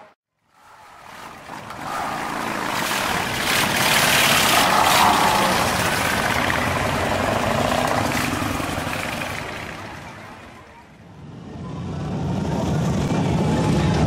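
Motorcycles riding slowly past, their engines swelling to a peak a few seconds in and fading about ten seconds in, then more engine sound building up again.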